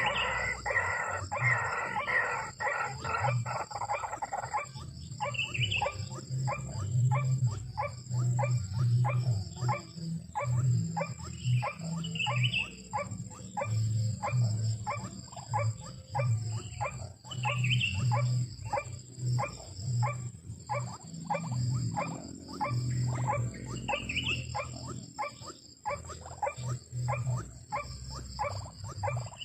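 White-breasted waterhens calling: a long run of rapid, repeated croaking notes at about three a second, over a low pulsing note, with a steady high-pitched tone throughout.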